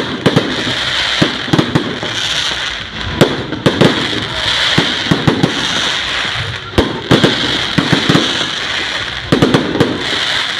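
Fireworks going off: irregular sharp bangs and pops, some in quick clusters, over a continuous crackling hiss.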